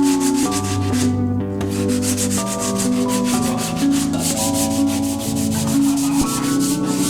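Background music with held chords and a fast, even beat, over 80-grit sandpaper rubbing on car body panels to key the paint for body filler.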